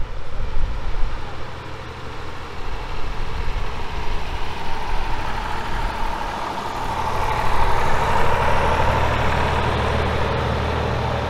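Miniature Warship-style diesel locomotive approaching with its train, the engine running steadily and growing clearer about halfway through as it draws nearer, over a rumble from the moving train.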